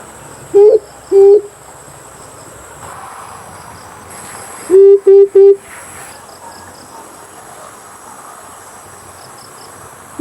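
Amethyst brown fruit dove calling in loud, low hooting coos: two notes about half a second apart, then about four seconds later a quick run of three. A steady high insect drone runs underneath.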